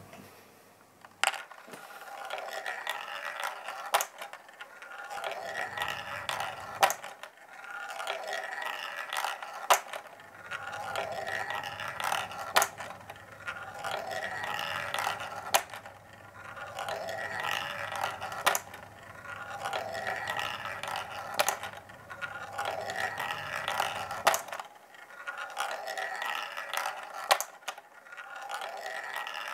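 A marble rolling round the track of a 3D-printed plastic marble run: a rolling rattle that swells and fades about every three seconds, with a sharp click once each lap.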